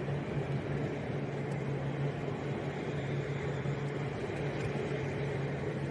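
Two coupled Class 350 electric multiple units passing, a steady rolling rumble with a constant low hum.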